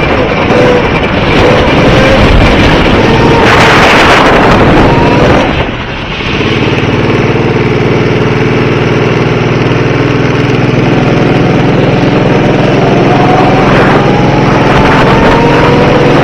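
Go-kart engine running loud, its pitch rising as it accelerates at the start and again over the last few seconds. It briefly drops in level about six seconds in, then holds a steady drone.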